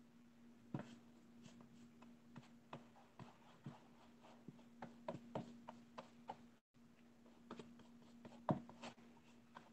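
Faint irregular scratches and taps of a paintbrush dabbing black paint onto a stretched canvas, a few a second, with one sharper tick near the end, over a low steady hum.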